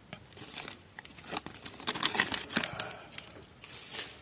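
Thin plastic food bags crinkling and rustling as they are handled, in short irregular crackles, loudest around two seconds in.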